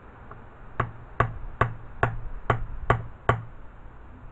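Light hammer taps on a socket used as a seal driver, easing a new seal into the bore of a Villiers 9E transmission case: seven short, evenly spaced taps, about two and a half a second, starting about a second in.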